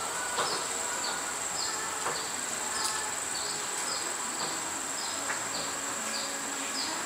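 Insects, such as crickets, make a steady high-pitched drone. A short falling chirp repeats about twice a second over it.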